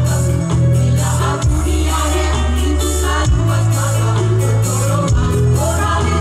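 Women's choir singing together over music with a deep bass line of held notes and steady percussion.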